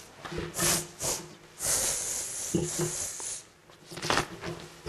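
A person sniffing and snorting through a runny nose: several short wet sniffs, with one long drawn-out sniff about two seconds in.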